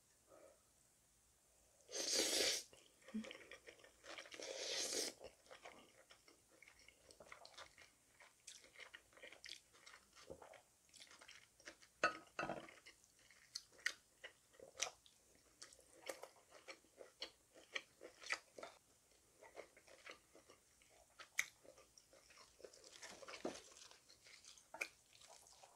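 Close-up eating sounds: two loud slurps of spicy cold noodles, then wet chewing with many small clicks of mouth and chopsticks. A sharp chopstick clack comes about halfway through, and a lettuce leaf rustles near the end.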